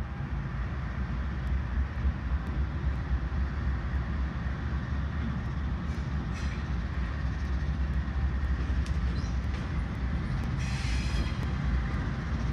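Norfolk Southern diesel locomotives rumbling past at low speed, with a steady deep engine drone. A short high screech, likely wheel squeal, comes about ten and a half seconds in.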